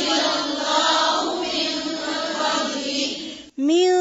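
Female voice reciting the Quran in melodic tajweed style, drawing out a long, wavering sung vowel. It breaks off briefly about three and a half seconds in, and a new, steady held note begins.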